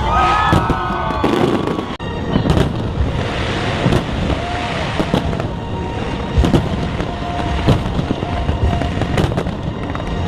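Fireworks going off in a rapid series of bangs and crackles, with show music playing underneath.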